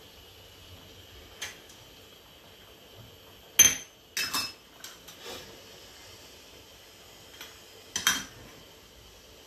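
Metal cookware and utensils being handled: a few sharp clinks and knocks with a short ring. The loudest comes about three and a half seconds in, a quick pair follows, and there is a double knock near the end.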